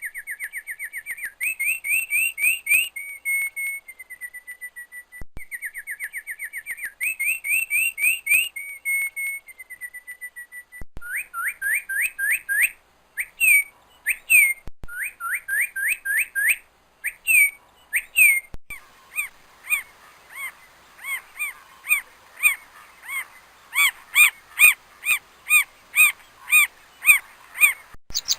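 Bird song: fast trills of short whistled notes sweeping up and down, broken by a few held whistled notes, changing about two-thirds of the way through to a series of evenly spaced chirps at about two a second.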